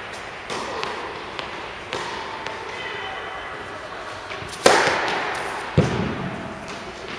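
Tennis serve in an indoor hall: a few light taps of the ball before the serve, then a loud crack of racket on ball about four and a half seconds in. About a second later comes another sharp hit as the ball is struck or bounces. Each impact echoes through the hall.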